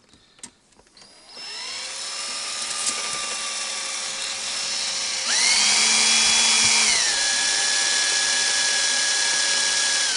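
Electric hand drill running as it drills holes in a switch blanking plate: a steady motor whine that speeds up and gets louder about halfway through, eases back a couple of seconds later, and winds down near the end.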